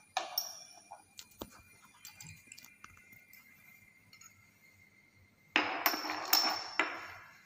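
Glass test tubes clinking against glassware: two sharp clinks just after the start, a few faint ticks, then a louder run of rattling clinks for about a second and a half near the end.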